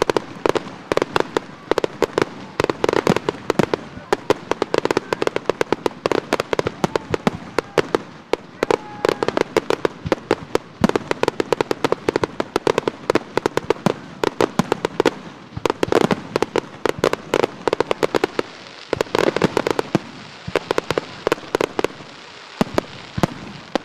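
Fireworks display: a dense barrage of bangs and crackling as aerial shells and low-level fireworks burst several times a second, thinning out in the last second.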